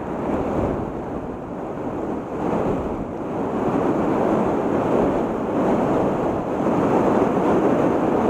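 Heavy river current rushing through whitewater below a dam: a steady, dense rush of water, a little louder after the first couple of seconds.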